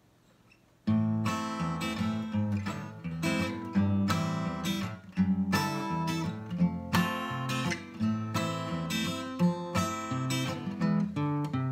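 Acoustic guitar strummed in a steady rhythmic pattern, playing the song's intro in A minor, starting about a second in.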